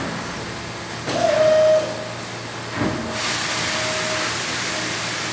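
Mazak CNC machining centre running a block in single-block mode: a short loud whine about a second in that carries on more faintly, a knock near three seconds, then a steady hiss that starts suddenly and keeps going.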